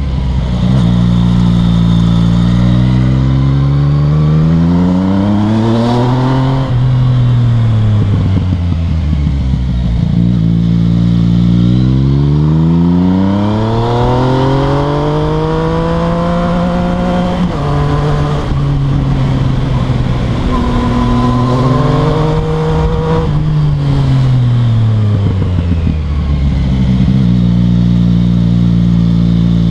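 Yamaha MT-09's three-cylinder engine through an Akrapovic exhaust, pulling hard as the bike accelerates out of hairpin bends. The engine note rises three times in long climbs, drops back sharply between them at gear changes or when the throttle closes, and settles to a steadier note near the end.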